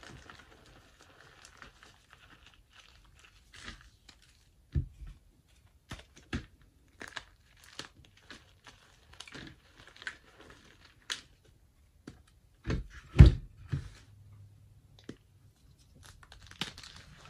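Hands crushing and crumbling blocks of gym chalk: dry crunching and crackling in short bursts, with a few dull thumps, the loudest about two-thirds of the way through.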